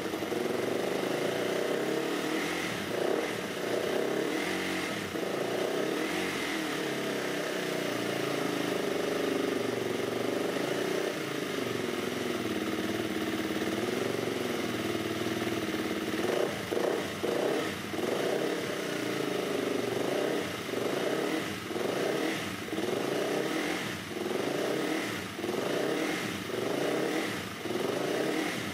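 A 2023 GasGas EC350F's freshly rebuilt 350 cc single-cylinder four-stroke engine running on the stand: steady at first, then from about halfway through the throttle is blipped over and over, about once a second.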